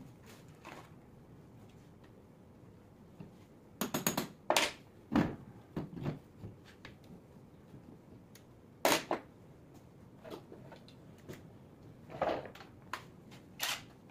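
Hand tools clinking and knocking against the metal housing of an alternator held in a bench vise: a handful of separate sharp clacks, several close together about four to five seconds in, one near nine seconds and two more near the end.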